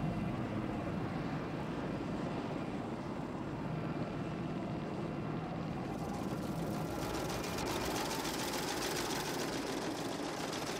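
Steady drone of an aircraft engine, with a hiss joining in about six seconds in.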